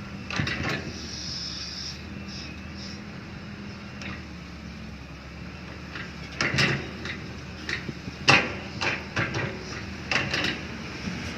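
Excavator working: its diesel engine runs steadily while the bucket and linkage give a brief high squeal and a series of sharp metal clanks, most of them in the second half.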